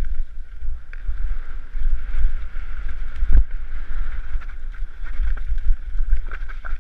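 Wind buffeting a helmet-mounted camera microphone as a mountain bike rides fast down a muddy, stony track, with steady tyre noise and knocks and rattles of the bike over rocks; one heavier knock about three and a half seconds in.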